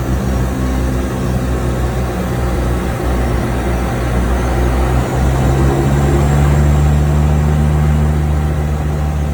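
Seaplane's engines running loudly at takeoff, a low steady drone that grows stronger about halfway through as power builds.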